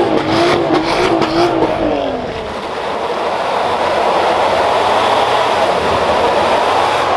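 A car engine revving with short sharp pops over the first two seconds. Then a Mitsubishi L200 pickup's diesel engine is held at high revs while its rear wheels spin on wet tarmac, a steady note that slowly rises in pitch.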